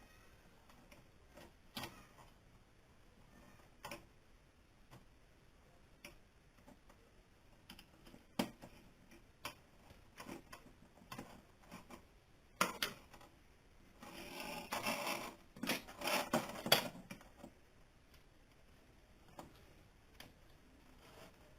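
Scattered light clicks and taps of hands handling wires and parts on a workbench, with a few seconds of rustling and scraping about two-thirds of the way through.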